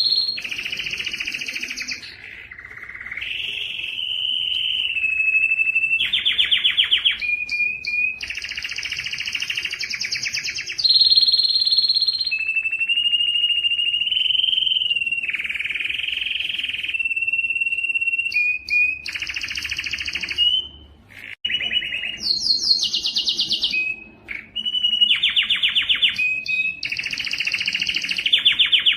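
Male canary singing continuously: long whistled notes alternate with fast rattling trills, with a few brief pauses between phrases.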